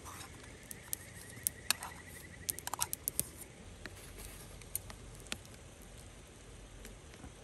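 Chopsticks clicking and scraping against stainless steel cups while turban-shell pieces are pushed out of one cup onto rice and stirred in: a scatter of light, sharp clicks and taps, most of them in the first three seconds.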